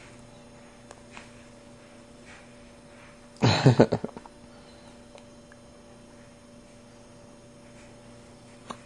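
A person with hiccups letting out a sudden loud vocal burst about three and a half seconds in, several quick jolts lasting under a second, over a steady electrical hum.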